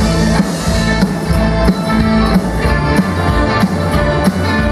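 Live rock band playing loudly: electric guitars strummed over drums and bass.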